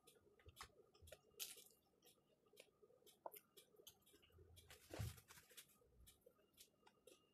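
Near silence with scattered faint clicks and light handling rustles, and a brief rustle about five seconds in.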